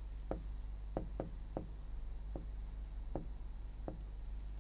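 Quiet room tone with a steady low electrical hum and faint, short clicks every half second or so, unevenly spaced.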